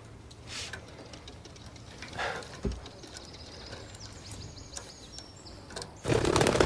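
Budgerigar's wings fluttering in a sudden loud burst about six seconds in, as it takes off from a hand and flies. Before that only faint small ticks and a soft knock are heard.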